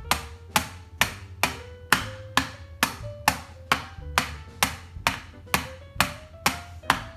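A small steel hammer driving a nail into a thin wooden box, with about sixteen blows at a steady two a second. Each blow is sharp, with a short ring after it, and the ring's pitch creeps slowly upward over the run.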